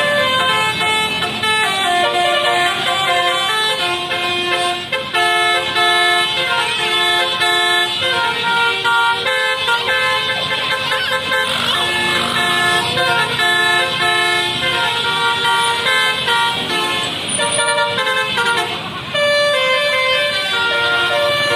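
Bus telolet horn, a Basuri multi-tone musical air horn, playing a melody of held notes that step in pitch about every half second.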